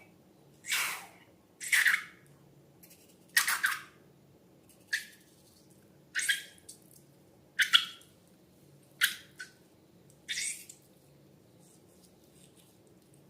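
Slime being squeezed and worked by hand, giving about nine short, squeaky squelches roughly one every second and a half, which stop near the end.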